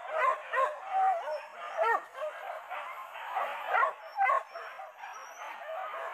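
Hunting dogs yelping and baying, a run of short high yelps and whines that overlap one another, with louder yelps scattered through.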